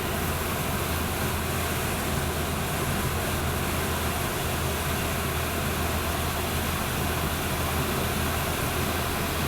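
Air handler blower fan running steadily, with a low motor hum under the rush of air. It is blowing across the electric heat strips to cool them after their overload cut them off.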